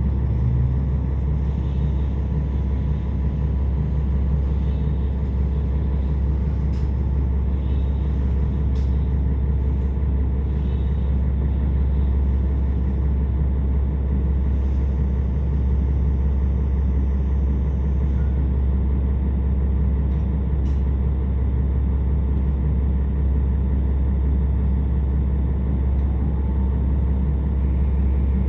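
KiHa 47 diesel railcar's engine idling steadily while the train stands at a station, heard from inside the carriage as a constant low hum, with a few faint ticks.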